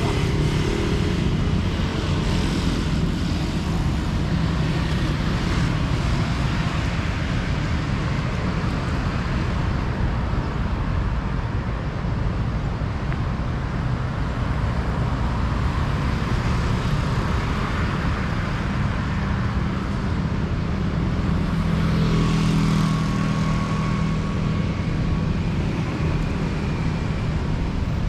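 Road traffic passing steadily on a city street, with one vehicle's engine growing louder as it passes about three-quarters of the way through.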